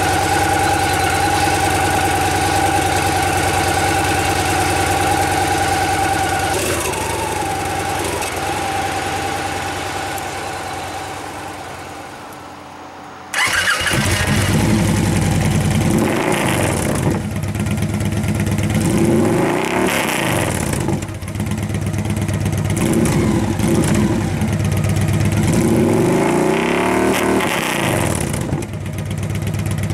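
2014 Victory Cross Country's 106 cubic-inch V-twin running through de-baffled stock exhaust pipes. It idles steadily at first and fades away; after an abrupt jump about halfway through it runs louder and is revved several times, each rev rising and falling back to idle.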